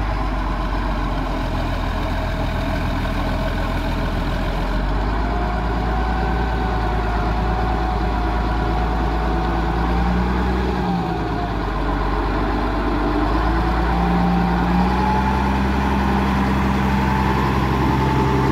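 Caterpillar 140G motor grader's diesel engine running steadily while it grades the sub-base, with a faint wavering whine above the engine note. It gets a little louder in the last few seconds as the machine comes up close.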